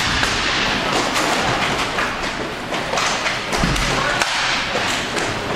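Hockey game play: repeated thuds and knocks of the puck and sticks hitting the boards, scattered irregularly over steady background noise.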